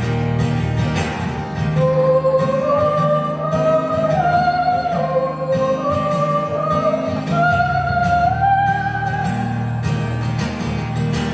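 Live acoustic music: a wordless held vocal melody climbing in steps over guitar, in two rising phrases that start about two seconds in and fade near the end.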